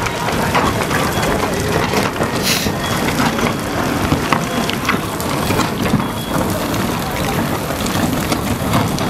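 Steady hiss of a water jet spraying onto a cracked shotcrete tunnel face, mixed with the murmur of a watching crowd.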